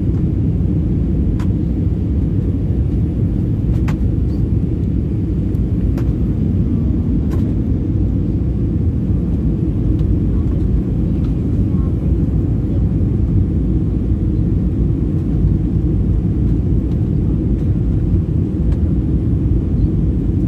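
Steady low rumble of airliner cabin noise on the approach to landing: jet engines and rushing air heard from a window seat, with a few faint ticks.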